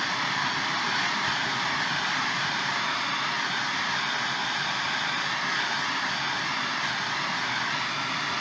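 MAP Pro gas torch burning with a steady, even roar, heating the forged mild-steel pendant before it goes into the oil bath.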